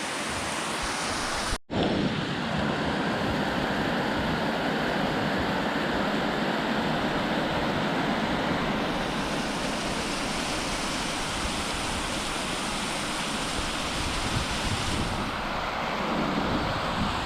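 Water rushing steadily beneath frozen ice, a continuous even flow, broken by a momentary dropout about one and a half seconds in.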